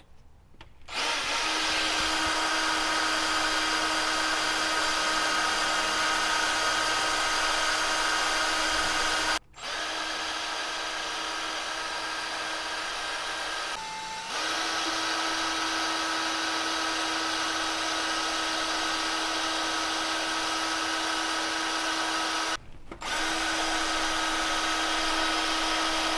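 Cordless Ryobi 18V drill running steadily with a constant whine as it drills out a broken, heat-seized exhaust manifold flange stud. It starts about a second in and stops briefly twice before carrying on.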